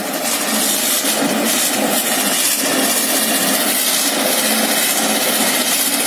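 TDT-55 tracked skidder's diesel engine running hard under load with its tracks churning in snow, as the machine works to climb off a stump it has hung up on. The sound is loud and steady throughout.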